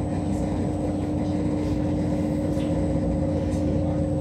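RER B electric commuter train pulling out of a station, heard from inside the carriage: a steady rumble with a low, level motor hum.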